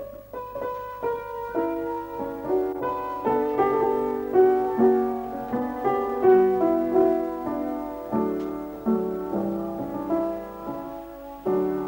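Upright piano playing a classical piece, single notes and chords struck in a steady run and left to ring.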